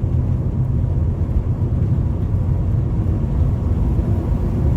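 Volkswagen Bora V6's VR6 engine pulling from low revs in 4th gear as the car accelerates, a steady low drone heard from inside the car.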